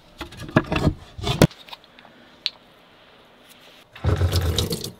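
Clicks and rattles of bottles and jars being handled in a small wooden cabinet, with a single click a second later, then a short burst of toothbrush scrubbing about four seconds in.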